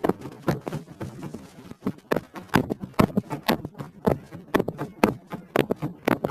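Loud, irregular knocking: a run of sharp knocks, several a second and some in quick pairs, going on without a break.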